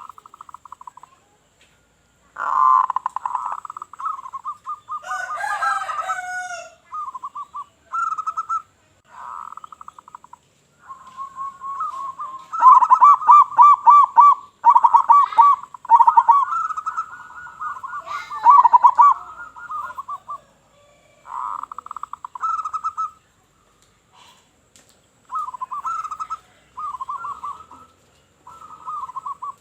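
Zebra doves (perkutut) cooing: repeated phrases of rapid staccato coos, with several phrases overlapping in the middle stretch. Another call with sliding pitch sounds briefly about five seconds in.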